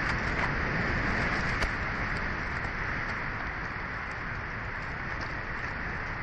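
Strong wind gusting across the nest camera's microphone: a dense rushing noise that swells over the first couple of seconds and then eases a little, with one sharp click about one and a half seconds in.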